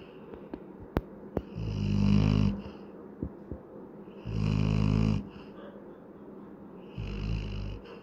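Adult Labrador retriever snoring in its sleep: three low, buzzing snores, each about a second long and roughly two and a half seconds apart. A couple of sharp clicks sound about a second in.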